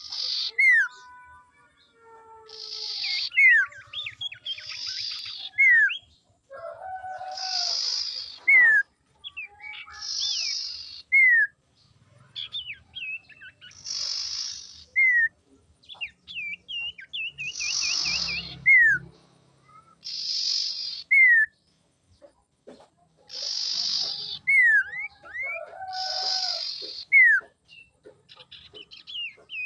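Common iora calling over and over: each phrase is a short harsh buzzy note followed by a sharp falling whistle, repeated about every two to three seconds, with a quick wavering trill midway.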